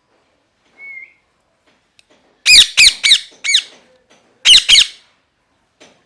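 Ringneck parrot giving loud, harsh squawking calls: a quick run of four about two and a half seconds in, then two more about a second later, after a faint short whistle near the start.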